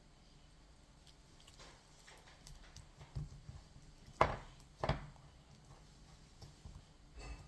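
Slime being handled and pressed back into its plastic tub: scattered faint clicks, with two louder sharp knocks a little over four and five seconds in and another just before the end.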